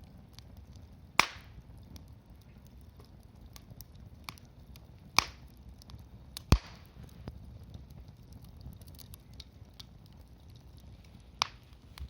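Wood fire crackling: four sharp loud pops from the burning wood, with small ticks between them over a steady low rumble.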